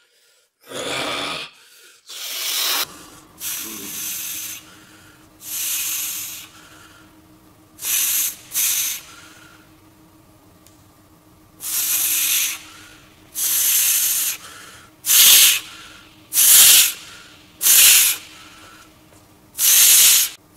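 A man's sharp hissing breaths, about a dozen short bursts one to two seconds apart as he strains to flex, over a faint steady hum.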